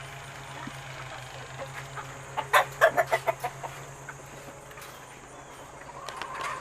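Chicken clucking: a quick run of about eight short clucks over a little more than a second, starting about two and a half seconds in.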